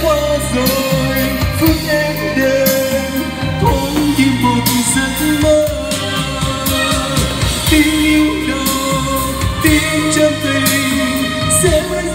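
A man singing karaoke into a wireless handheld microphone, amplified through a trolley loudspeaker and mixer over a pop backing track with a steady bass beat.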